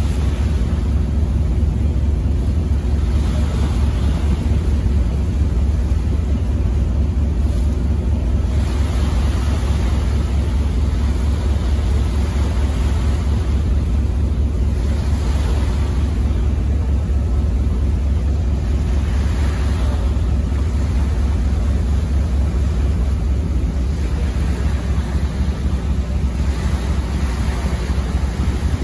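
Harbour ferry under way: a steady, deep engine rumble, with wind on the microphone and water noise above it.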